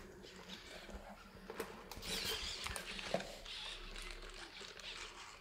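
Sony Aibo ERS-7 robot dog going through its motion self-test: the whir and clicking of its joint servos as it shifts its legs and head, with soft steps of its covered feet on a wooden floor, busiest about two seconds in.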